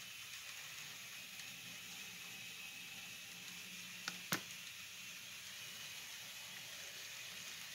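Faint steady hiss and low hum of model trains running on a layout, with two sharp clicks a little after four seconds in.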